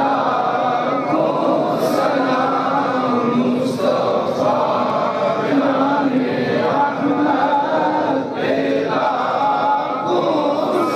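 A boy chanting a Salaam, a devotional verse of greetings to the Prophet, into a microphone in a slow melody of long held notes, with other voices chanting along.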